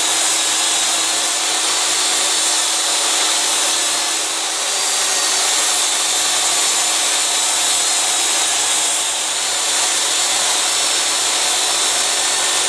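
DEWALT jobsite table saw running steadily while its blade rips 3/4-inch birch plywood lengthwise into strips.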